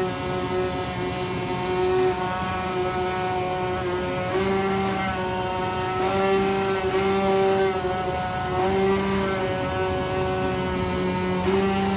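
IECHO BK3 flatbed cutting machine running as its head cuts an acoustic panel: a steady motor whine made of several pitched tones. After about four seconds the whine shifts slightly in pitch and strength every second or two as the head changes its moves.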